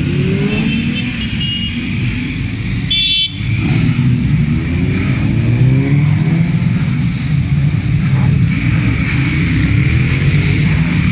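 Motorcycle engines of mixed kinds, sport bikes and cruisers, running as a stream of bikes rides past one after another, engine pitch rising again and again as riders accelerate away. A short high-pitched beep comes about three seconds in.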